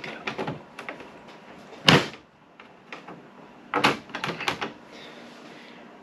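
Plastic vent covers being pressed back into an RV air conditioner's ceiling return grille: light clicks, one sharper knock about two seconds in, and a short clatter of knocks about four seconds in.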